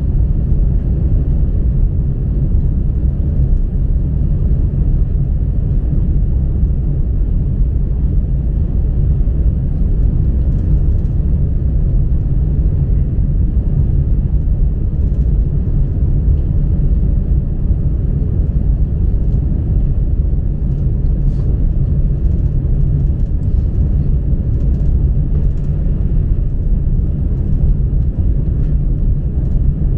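Steady low rumble of a Chinese high-speed bullet train running at cruising speed, heard inside the passenger cabin.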